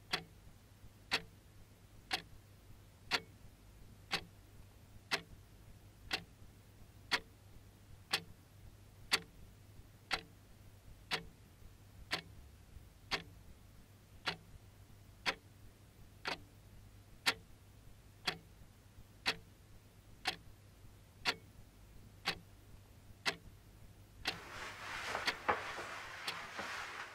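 A clock ticking faintly and evenly, about once a second, over a low steady hum. Near the end the ticks stop and a soft rustling hiss rises.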